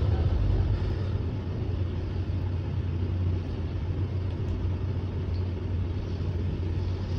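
Steady low rumble with an even background hiss.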